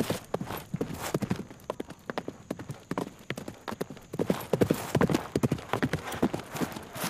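A horse galloping, its hooves striking the ground in quick, uneven clusters of hoofbeats that grow louder about four seconds in.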